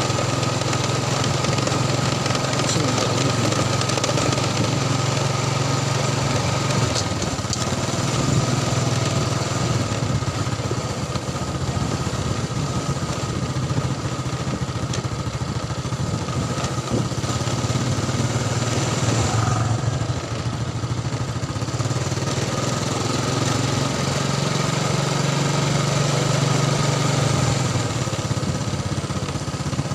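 Motorcycle engine running steadily on the move, its note shifting slightly a few times.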